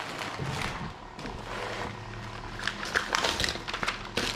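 Rummaging by hand: an irregular string of small clicks, knocks and rustles as objects are moved about in a search for a pack of washers, busiest about three seconds in.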